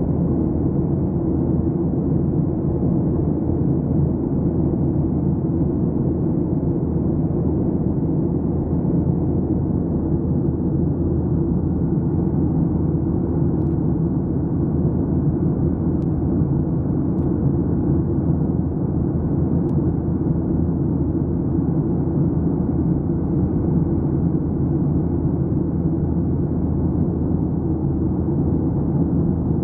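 Steady jet airliner cabin noise during the climb after take-off: the low, even rumble of the engines and airflow as heard inside the cabin at a window seat.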